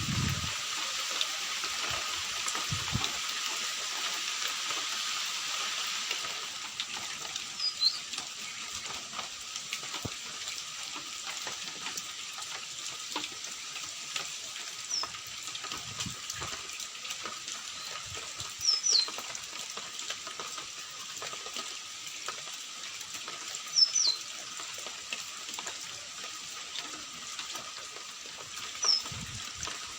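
Steady rain hiss, a little louder in the first few seconds, with a bird giving short high chirps about five times.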